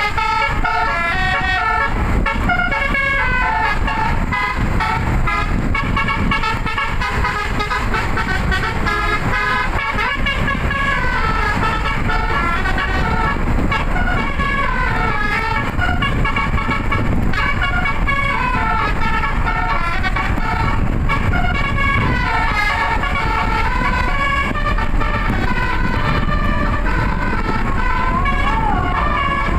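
Multi-tone bus 'telolet' horn playing a tune without a break, its notes stepping up and down, over a steady low rumble.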